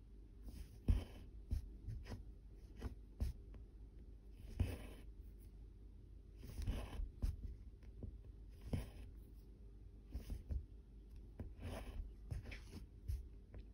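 Needle and embroidery thread being pulled through 25-count Zweigart fabric, stitch after stitch: each stitch a soft click followed by a short scratchy rasp, repeating about every one to two seconds.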